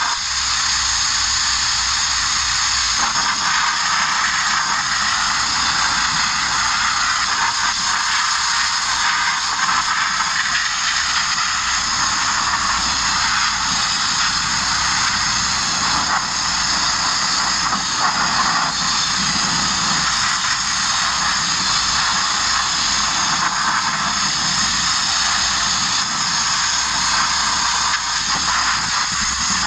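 Abrasive media blaster running without a break: a loud, steady hiss of compressed air and grit from the blast nozzle striking the body of a Mk1 Ford Transit van.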